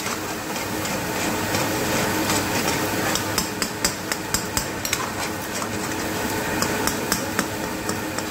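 Metal ladle clanking and scraping against a steel karahi wok as chicken and tomatoes are stirred, with frequent irregular clinks over the steady sizzle of the frying.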